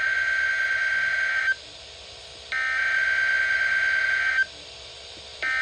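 NOAA Weather Radio EAS (SAME) header data tones: harsh, screechy digital bursts, each about two seconds long with a second's pause between them. One burst ends about a second and a half in, a second one plays, and a third starts near the end. They encode a severe thunderstorm watch (SVA) alert.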